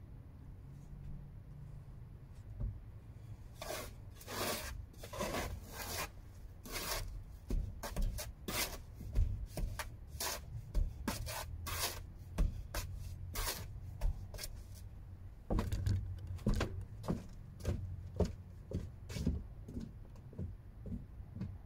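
Repeated irregular scraping strokes, about two a second, of a hand tool working mortar, starting a few seconds in.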